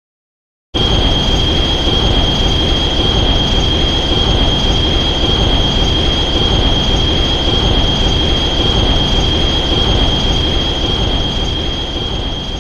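Shin Godzilla film sound effect: a loud rushing noise with a steady, shrill, high tone over it. It starts suddenly about a second in, holds unchanged, and begins to fade near the end.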